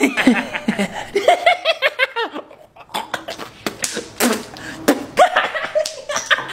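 Loud laughter mixed with short vocal exclamations, broken by a brief lull about two and a half seconds in.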